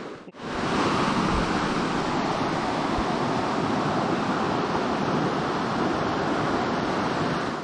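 Shallow rocky river running over stones: a steady, even rush of flowing water.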